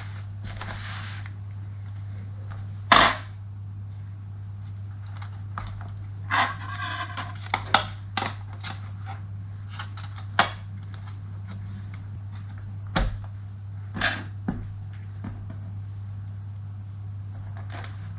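Scattered clicks and knocks of small hard parts being handled: a screwdriver, small screws and the plastic and metal pieces of a laptop's lid and screen brackets, the loudest a sharp knock about three seconds in. A steady low hum runs underneath.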